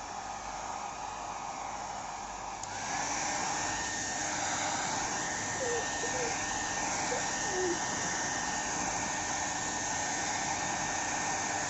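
Havells hair dryer running with a steady blowing rush. About three seconds in, a click sounds and it runs louder, with a steady high whine added.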